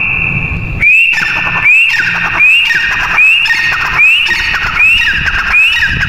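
Grey francolin calling: a loud, shrill, high call repeated about every 0.8 seconds. Each call starts with a quick rising note, holds a high tone and breaks into a falling rattle beneath it.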